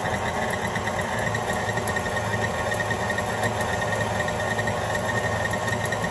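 KitchenAid Artisan stand mixer running steadily, its beater mixing eggs into creamed butter and sugar in the steel bowl. The motor gives an even hum with a constant high whine over it.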